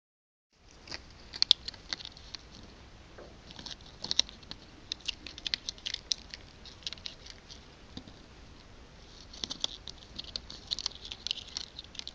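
A cat making bursts of quick, sharp little clicks and crackles, clustered in runs of a second or two with short pauses between.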